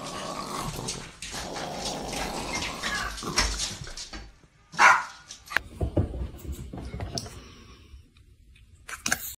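Small fluffy dog growling and barking at mail coming through the front door's letter slot, with the loudest bark about five seconds in.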